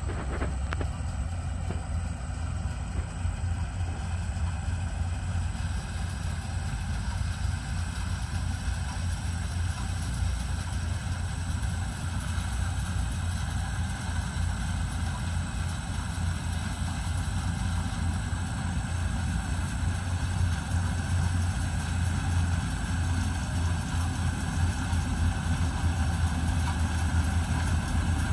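A rice combine harvester's engine running steadily while it harvests the paddy, heard as a continuous low rumble that grows slightly louder near the end as the machine comes closer.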